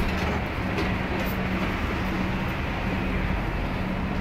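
Steady whirring drone of commercial kitchen ventilation, exhaust hood and oven fans, with a low steady hum underneath.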